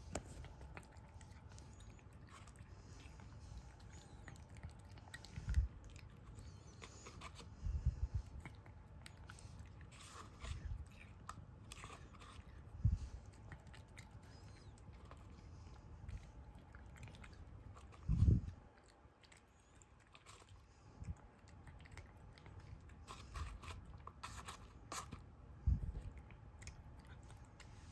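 A kitten chewing and biting at a piece of meat held in a person's fingers: soft, quiet chewing with many small clicks, and a few dull thumps.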